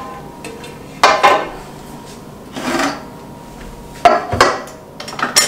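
Two fluted torte pans being handled and set down on the kitchen counter: four separate knocks with a short ring, about a second and a half apart.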